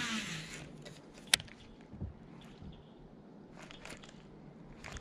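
A fishing rod being cast: a brief whoosh of rod and line running off the reel at the start, then one sharp click about a second later, likely the reel being engaged, followed by faint handling ticks.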